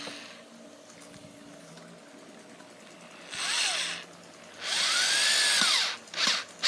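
Power drill driving screws into solid wood in three bursts: a short one about three seconds in, a longer one, and a brief one near the end. The motor's pitch rises and falls with each burst.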